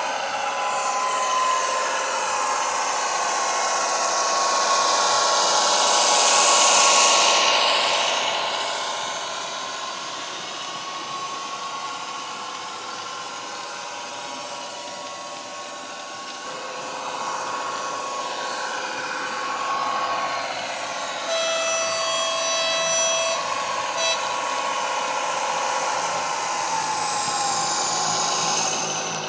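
Diesel-hydraulic engine and transmission sound of an ESU BR216 model locomotive, played by its factory-fitted sound decoder through the model's speaker, together with the model running on the track. The transmission whine rises and falls, loudest about six seconds in as the loco passes close. A horn blows for about two seconds around two-thirds of the way through, then gives a short toot.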